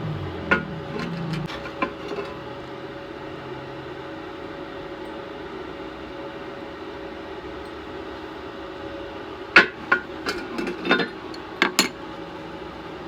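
Hammer striking steel, likely a chipping hammer knocking slag off a stick-welded bead: two single knocks early on, then a quick run of about eight sharp strikes near the end, over a steady hum.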